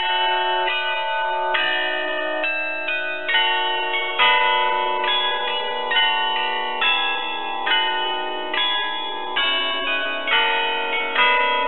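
Carillon of bells hung in an open wooden frame playing a tune: a run of struck bell notes, quicker at first and then about one a second, each ringing on under the next.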